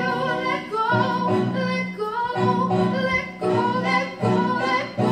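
Operatic-style singing over instrumental accompaniment from a stage musical, in short phrases of wavering held notes broken by brief pauses.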